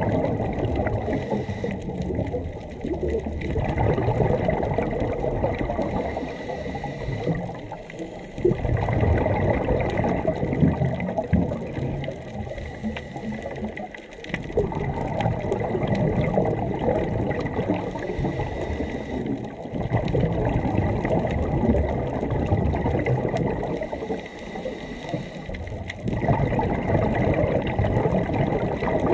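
Scuba regulator breathing heard underwater: exhaled air bubbling out in long gurgling surges every few seconds, with quieter gaps between breaths. A faint steady high tone sits beneath it.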